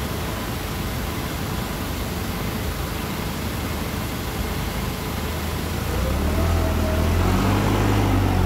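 Cat forklift's engine running at idle under a steady hum, then revving up and getting louder about six seconds in as the forklift drives off.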